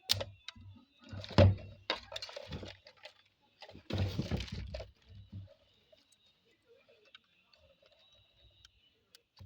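Plastic clicks, knocks and scraping as the locking clips of a fuel pump module are pried apart with a screwdriver and by hand. The handling is busiest in the first five seconds, with a few faint ticks after.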